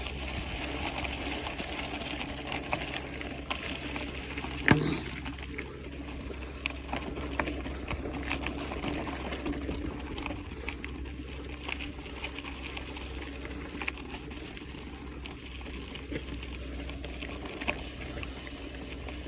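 Mountain bike rolling along a dirt trail: steady tyre noise over gravel with scattered small rattles and clicks from the bike, and one sharper knock about five seconds in.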